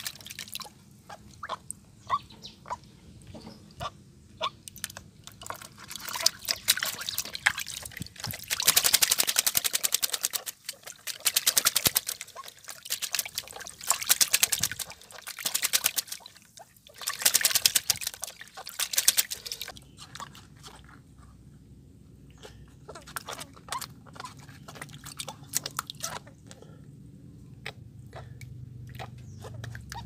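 A zebra dove being bathed by hand in a basin of water: small splashes and drips, then several loud spells of heavy splashing in the middle as the wet bird beats its wings in the water, settling back to gentle sloshing and dripping near the end.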